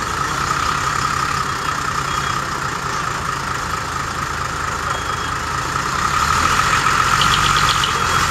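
Diesel engine of a decorated Japanese cab-over truck running steadily at idle: a low engine drone with a steady high whine over it. A brief rapid chirping comes near the end.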